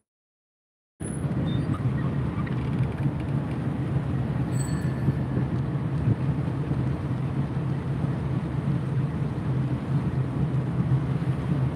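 A tugboat's engine running with a steady low drone, heard on board with a hiss of wind and water, starting about a second in after a brief silence.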